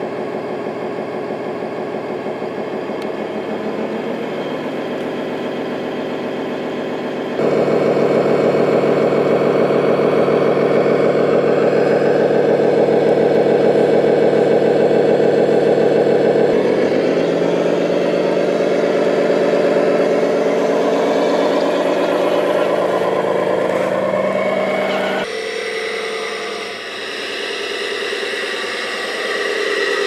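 Engine sound of a radio-controlled 1:14-scale-style Mercedes-Benz SK 6x6 tipper truck, running and revving steadily. It jumps abruptly louder about seven seconds in and drops abruptly near the end, where another RC construction vehicle's engine sound takes over.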